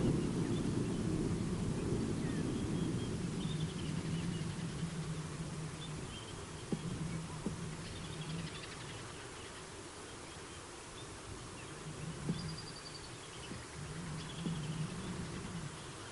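A flying insect buzzing close to the microphone, coming and going in bouts, over a low wind rumble that is strongest at the start. Faint high chirps and a few sharp clicks sound now and then.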